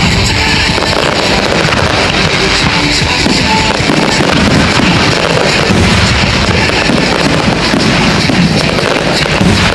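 Loud music from the fireworks show's sound system, mixed with a dense, continuous crackle and popping of fireworks.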